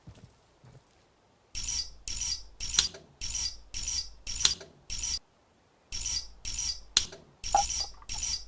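A ratcheting tool worked in quick repeated strokes, about two a second, with a short pause partway through before the strokes resume.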